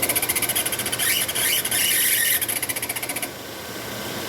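A fast, even mechanical ticking on a car, about fifteen ticks a second, that sounds like an engine noise; a squeal rising in pitch joins it about a second in. The ticking stops about three seconds in.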